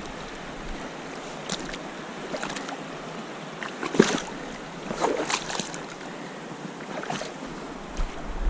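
River water rushing steadily, with a few scattered knocks and clicks, the sharpest about four seconds in.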